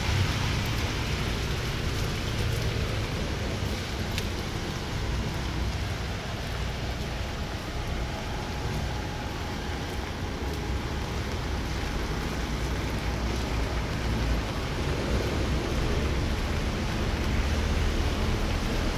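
Steady street ambience on a wet city road: a low rumble of distant traffic under an even hiss, with no distinct events standing out.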